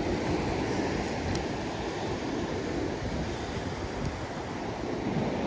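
Ocean surf washing and breaking on the rocks below a sea cliff, a steady rushing wash, with wind buffeting the microphone.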